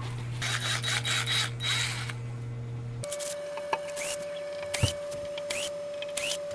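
Rubbing and scraping handling noise with a few clicks, over a steady low hum. About three seconds in the hum stops abruptly, leaving a faint steady tone and scattered light clicks.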